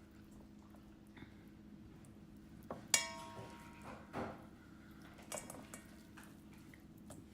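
A few clinks and knocks of a dish and utensils as chicken meat is pulled apart and put into it, the loudest about three seconds in with a short ring. A steady low hum runs underneath.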